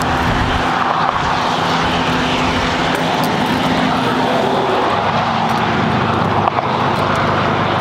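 A motorboat's engine running steadily as the boat passes on the water; its low engine note weakens after the first couple of seconds.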